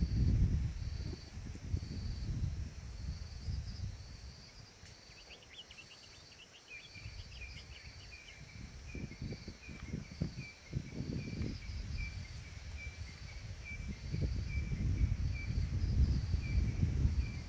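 Outdoor bush ambience: an insect chirps in short pulses about once a second, and from about five seconds in a bird gives a run of quick notes and then a repeated note about twice a second. Under it a low rumbling, scuffing noise is loudest at the start and swells again near the end.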